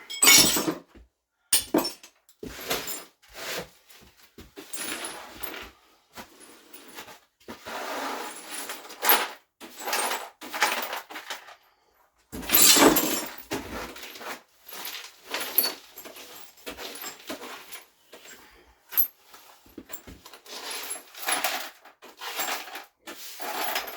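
Irregular clattering, knocking and scraping of broken demolition debris being handled and scooped up, with a louder crash about halfway through.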